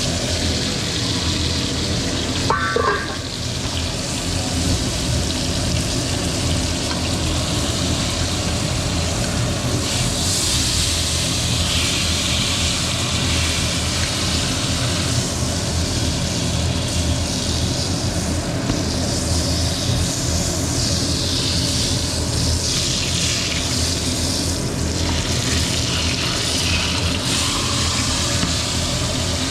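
Chuletón (bone-in ribeye steak) sizzling in a pan with butter and rosemary: a steady frying hiss that swells and eases, over a steady low hum. A short sound that falls in pitch comes about two and a half seconds in.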